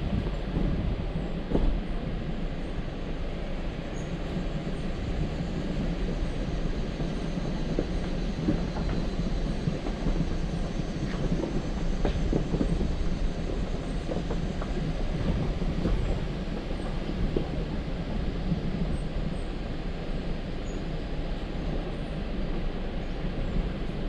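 Jeep Wrangler JL driving on an off-road trail: a steady low rumble of engine and tyres with scattered knocks and clunks, several seconds apart.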